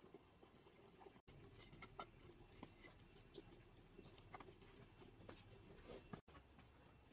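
Faint crackling of a small wood fire of dry sticks and twigs catching and burning: scattered soft ticks and pops over low room tone.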